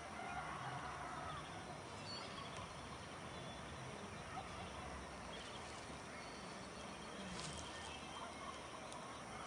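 Faint outdoor ambience: a steady hiss with a few faint, distant animal calls, and a brief click about seven and a half seconds in.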